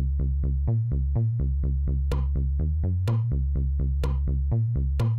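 Electronic background music with a steady drum-machine beat of about four pulses a second. From about two seconds in, a sharp hit lands about once a second.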